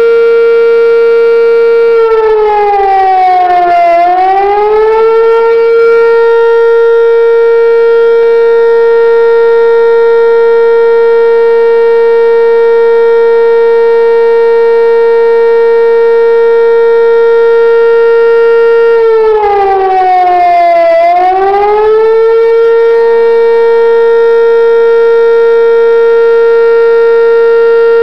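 Outdoor tornado warning siren sounding a loud, steady tone. Twice, about 17 seconds apart, its pitch dips and swings back up. It is sounding the warning for a tornado or funnel cloud spotted nearby.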